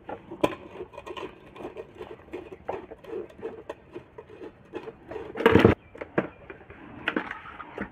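Small metal clicks and scrapes of a nut being tightened on the coil terminal of an electric cooking heater, with one louder knock about five and a half seconds in.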